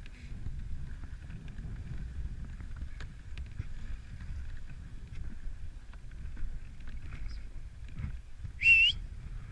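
Dog sled runners sliding over packed snow with a steady low rumble, and wind on the microphone. Near the end, a short, high-pitched rising squeal cuts in briefly.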